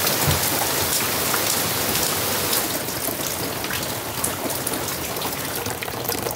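Heavy rain falling on a boat and the sea around it: a steady hiss dotted with the sharp ticks of single drops.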